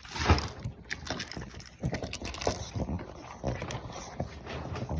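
A dog eating pieces of food from a plate, with irregular crunching, chewing and clicking sounds and a louder thud about a third of a second in.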